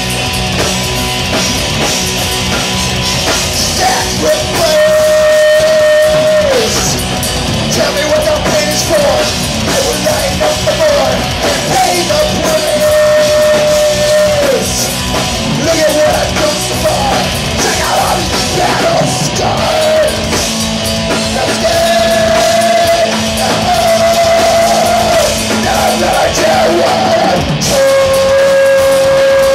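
Live rock band playing loud, with drum kit and guitars, and a lead voice holding long, slightly wavering notes over the band several times.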